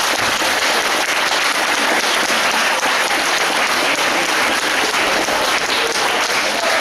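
Audience applauding, with steady, dense clapping.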